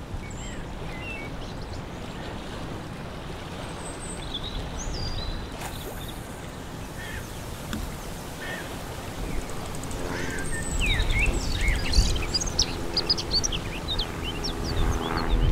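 Lakeside outdoor ambience: a steady rush of wind and water, with birds chirping and a low steady drone setting in about two-thirds of the way through.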